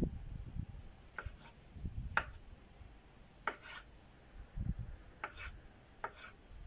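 A kitchen knife slicing wild mushrooms on a wooden cutting board: several short, irregularly spaced cuts, the blade tapping the board with each stroke.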